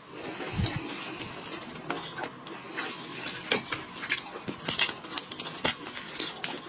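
Seafood eating sounds: irregular small clicks and crackles of lobster and shrimp shells being cracked, peeled and handled, with rustling in between.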